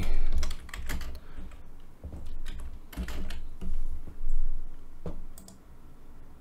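Typing on a computer keyboard: irregular keystrokes at an uneven pace, thinning out near the end.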